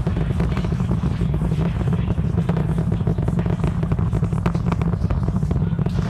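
Distant roar of the SpaceX Super Heavy booster's 33 Raptor engines during ascent, heard from about 6 miles away: a steady deep rumble with rapid, irregular crackling.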